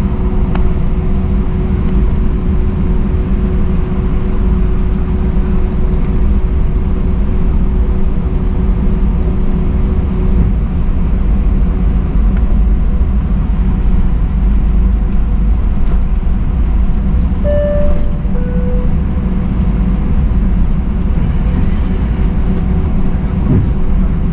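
Airbus A319 cabin noise on the ground: a steady engine and airflow rumble, with a steady hum that stops about ten seconds in. About seventeen seconds in, a brief two-note falling chime sounds, like a cabin chime.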